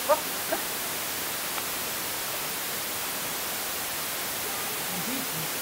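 Steady, even hiss of background noise, with a couple of brief voice sounds just after the start.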